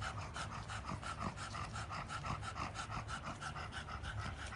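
Pug panting in quick, steady breaths, about four a second.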